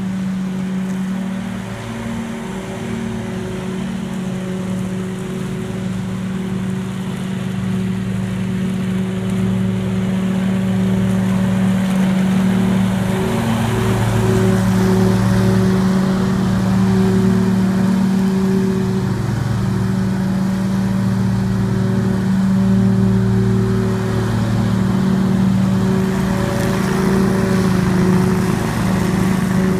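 Scag Tiger Cat II zero-turn mower running steadily under an even rushing noise from the cutting deck and bagging system, growing somewhat louder after about ten seconds.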